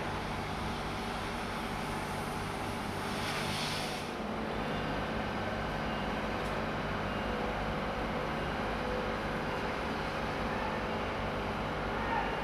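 Steady drone of construction plant engines running, with a low hum. A high hiss sounds over it and stops abruptly about four seconds in.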